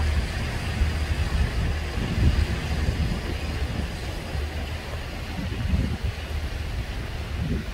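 Wind buffeting the microphone: a low, gusting rumble that swells and fades, with a faint steady hiss above it.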